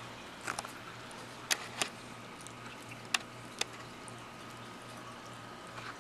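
A domestic cat licking a miniature schnauzer puppy's fur: a handful of short, wet tongue clicks and smacks in the first few seconds, over a steady low hum.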